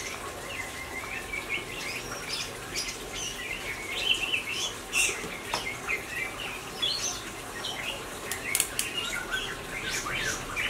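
Small birds chirping and twittering in quick, overlapping calls, with no pause between them.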